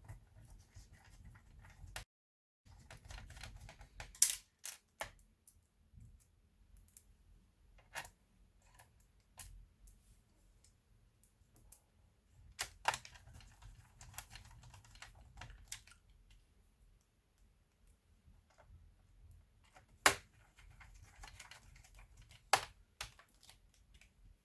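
Scattered light clicks and taps of a laptop's plastic parts being handled, with four sharper clicks spread through.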